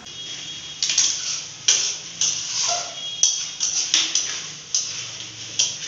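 A metal spatula scraping and knocking against a metal kadai as spiced curry masala is stirred and fried, in irregular strokes roughly once or twice a second with a faint ring from the pan.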